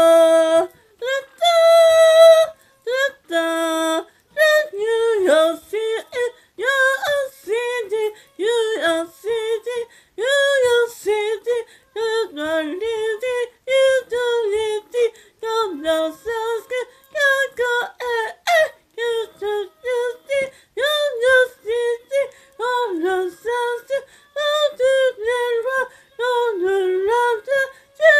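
A high-pitched voice vocalizing wordlessly in a long run of short notes, each bending up and down in pitch, with brief gaps between them.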